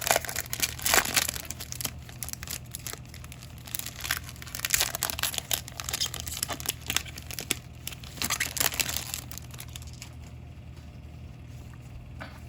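Foil wrapper of a 2019 Bowman baseball card pack being torn open and crinkled, in irregular rustles and crackles that die down after about ten seconds.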